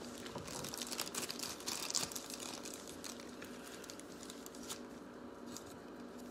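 Trading cards and plastic card packs handled by hand: soft crinkling and light clicking, busiest in the first three seconds, then fainter.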